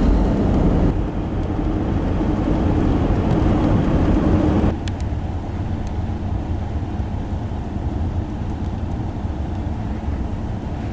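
Steady engine and road noise heard inside a moving car's cabin, dropping a little in level about five seconds in.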